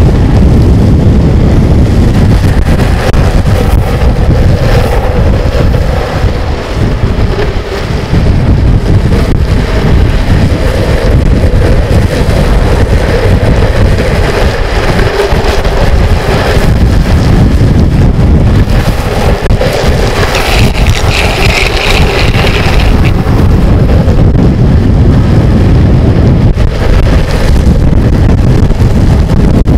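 Heavy wind buffeting on the microphone at downhill speed, over the steady rumble of longboard wheels rolling on asphalt. A brief higher hiss comes about two-thirds of the way through.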